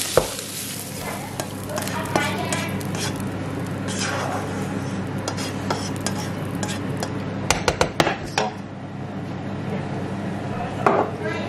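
Cooked diced chicken being scraped out of a frying pan into a stainless steel pot of fried rice, with scraping and sizzling over a steady low hum. A sharp knock just after the start and several quick taps of the utensil against the pan a little past the middle.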